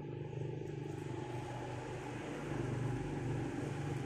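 A motor vehicle engine running steadily, getting a little louder about two and a half seconds in.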